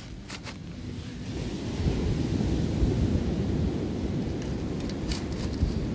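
Canister gas stove burning under a pot, a steady low rushing noise that grows louder about two seconds in, with a few light clicks near the start and near the end.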